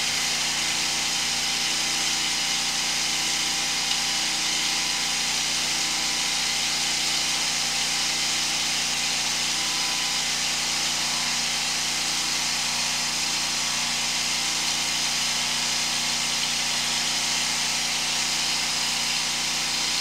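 Sewer hydro-jetting machine's engine running steadily: a constant hum with a high hiss over it.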